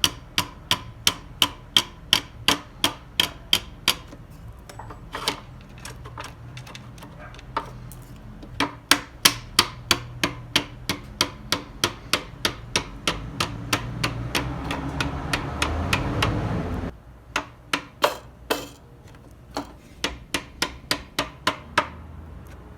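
Mallet taps driving a new intake manifold shift rod into the tight-fitting bushings of a VW VR6 intake manifold, sharp and even at about three a second, in several runs with short pauses. A low hum builds under the taps and cuts off suddenly about two-thirds of the way through.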